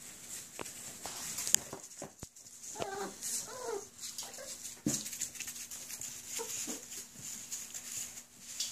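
Whippet puppies whimpering and whining as they play-fight, a cluster of short, wavering high whines about three seconds in and a few more later.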